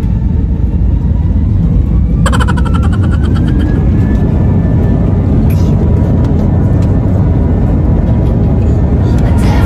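Loud, steady rumble of an airliner's engines and airframe heard inside the passenger cabin, with a brief rapid rattle about two seconds in.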